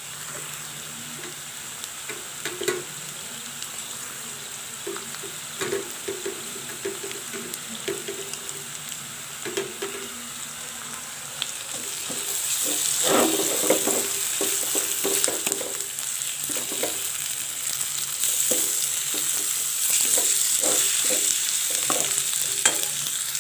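Flaked fish, grated coconut and sautéed onion sizzling in an oiled metal kadai while a perforated metal spatula stirs and scrapes the pan. The sizzling grows louder about halfway through.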